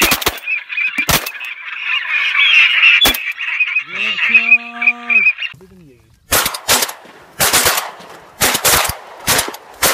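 A flock of ducks calling in a dense, high chatter, broken by single shotgun shots. After a brief lull about six seconds in comes a rapid string of shotgun shots.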